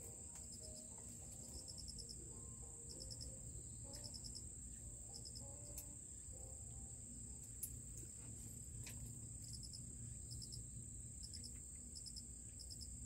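Crickets and other insects chirping: a steady high-pitched buzz with groups of quick, evenly pulsed chirps repeating over it, and a couple of faint clicks.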